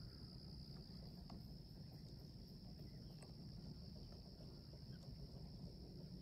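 Faint chorus of crickets, a steady high trill that never breaks, over a low rumble with a few soft ticks.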